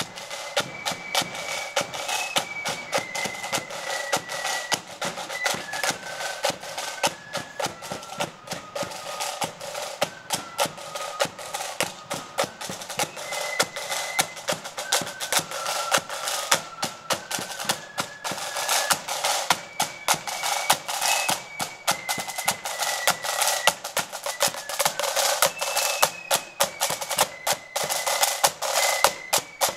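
Marching flute band playing a tune in unison over rapid snare drumming and a bass drum, growing a little louder as the band approaches.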